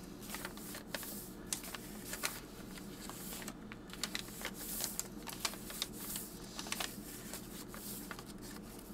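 Paper and cardstock pages of a handmade junk journal being turned and handled: dry rustling and sliding of paper, with many small crisp ticks as the pages flip and settle.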